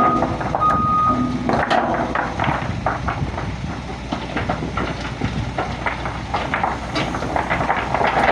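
Isuzu dump truck's reversing alarm beeping twice in the first second, over its engine running. The engine sound is then heard on its own, a rough noisy sound full of short knocks and crackles.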